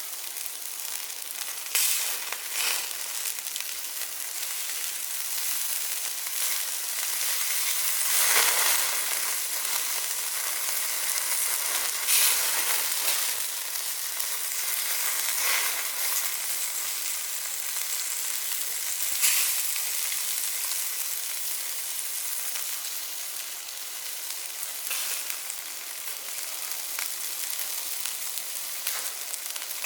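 Meat sizzling on a small stainless-steel barbecue grill: a steady hiss with a few louder crackles and pops now and then.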